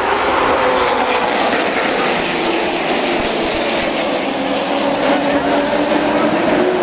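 A pack of stock cars running at racing speed around a short oval, their engines a loud, steady blended drone whose pitch sags slightly midway and climbs again near the end.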